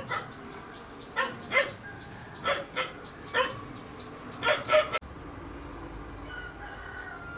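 A dog barking: about eight short barks, several in quick pairs, which stop abruptly about five seconds in.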